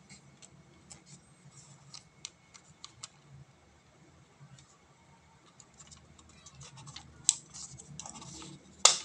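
Hands handling a cardboard smartphone retail box: scattered light clicks and taps, then louder scraping and a couple of sharp clacks in the last few seconds as the box is turned over.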